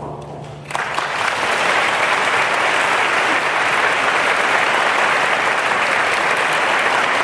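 Audience applauding, breaking out suddenly about a second in as the last held note of the music fades, then holding steady and dense.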